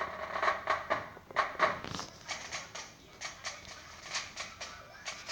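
Irregular knocks, taps and rustles, a few each second, from the camera being handled and set in place.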